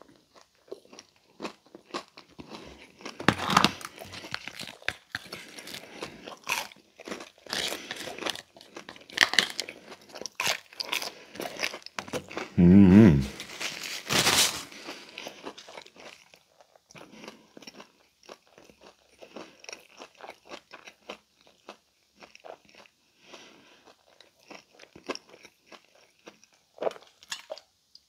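Close-miked biting and crunching into a crispy thin-crust Pizza Hut Melt, then chewing, with loud crunchy bites through the first half and quieter chewing after. About halfway through comes a brief low throaty sound, the loudest moment.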